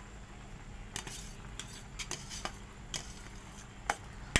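Scattered metal clinks of a steel bowl and utensils against a large aluminium cooking pot as rice is emptied into it, ending with one loud sharp clank near the end as a slotted spoon strikes the pot.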